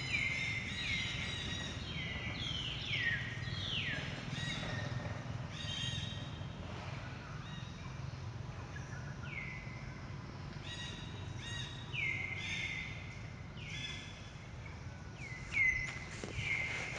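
Young long-tailed macaques screeching during rough play: runs of short, high squeals, each falling in pitch, with a lull about halfway through. A steady low rumble lies underneath.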